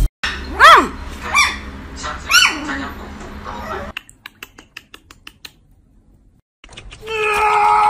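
Poodle puppy giving three high yips, each rising then falling in pitch, about a second apart, followed by faint light ticks of its claws on the wooden floor. Near the end a loud, sustained wailing sound cuts in.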